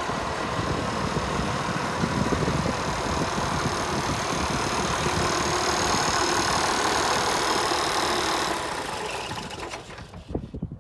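International 1086 tractor's turbocharged six-cylinder diesel running at a steady idle. The sound drops away near the end with a few irregular knocks.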